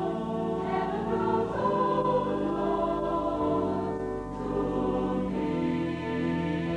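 Mixed choir of men's and women's voices singing together in held, changing chords.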